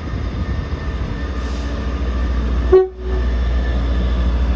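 Class 158 diesel multiple unit running with a steady low rumble, its driver giving one short horn beep about three seconds in.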